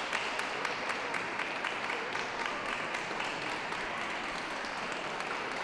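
Ringside audience applauding steadily, a dense patter of clapping.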